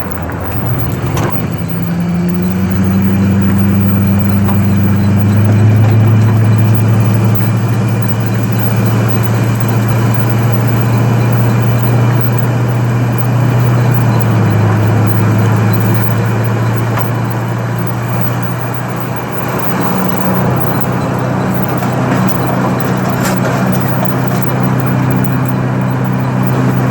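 A vehicle engine running steadily. Its pitch climbs over the first couple of seconds, then holds, with a slight drop about fourteen seconds in.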